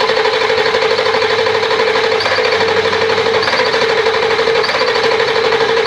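1999 Ford F250's 7.3L Powerstroke V8 diesel cranking over on the starter without firing: a steady whine over a fast, even cranking rhythm. It is a no-start after the tank was run dry. Injection control pressure builds but nothing catches, and the low-side lift pump is suspected of not supplying enough fuel.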